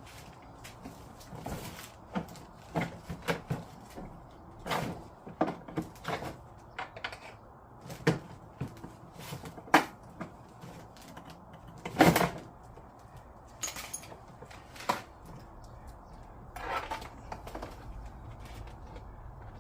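Hard plastic parts of a kids' ride-on toy car knocking and clicking as they are handled and fitted together: irregular knocks, the loudest about twelve seconds in.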